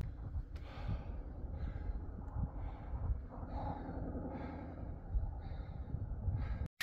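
A hiker breathing hard on a steep climb, about one breath a second, over wind rumbling on the microphone. The sound cuts out briefly near the end.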